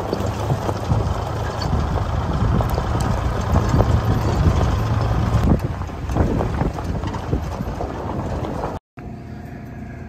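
A vehicle driving slowly on a gravel road, with engine and tyre noise over a steady low hum. After a brief dropout near the end it gives way to a quieter steady electrical hum from glass-door store coolers.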